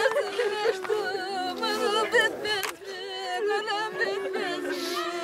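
Women keening a funeral lament: several voices wail at once in a wavering, trembling sing-song, with one voice holding a steady low note underneath.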